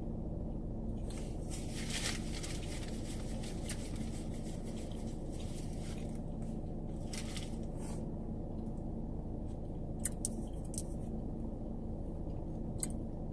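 Close-up chewing and biting of a Subway sandwich, coming in short spurts, the strongest about two seconds in, around seven seconds and around ten seconds, over a steady low hum.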